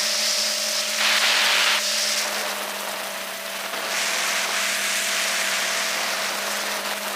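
FPV quadcopter in flight heard from its onboard camera: a steady electric-motor whine with rushing propeller and wind hiss that swells about a second in and again past the middle.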